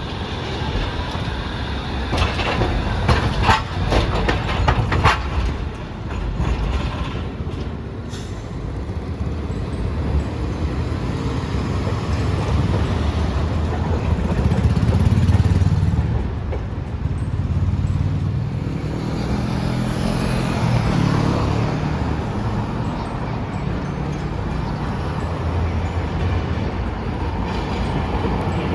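Trams and road vehicles passing through a street junction: a low rumble that rises and falls, with a run of sharp clacks about three to five seconds in.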